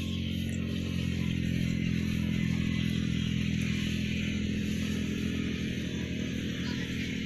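Engine-driven rice thresher running steadily: a constant engine drone with a hiss of threshing above it.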